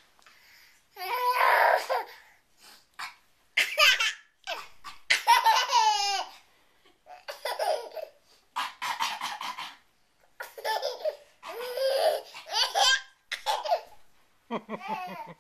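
A toddler laughing in a long run of separate bursts, one every second or so with short breaks between; some bursts slide down in pitch.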